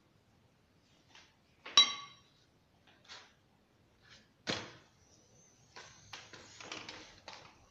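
Kitchen utensils knocking and clinking against metal cookware: a sharp, ringing metal clink about two seconds in, a duller knock a little past halfway, then a run of small clatters and rustles near the end.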